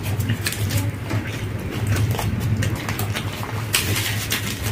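Close-miked chewing and mouth noises of people eating, with crinkling of an egg roll's paper wrapper, over a steady low hum.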